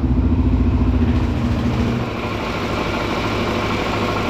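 Suzuki DR-Z400SM's single-cylinder four-stroke engine idling steadily on a test run after an oil and coolant change, easing slightly about two seconds in.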